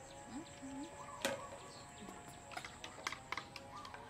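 Metal spoon tapping and scraping in a plastic cup as milk is stirred: one sharp tap about a second in, then a run of quick light clicks. A faint steady hum underneath.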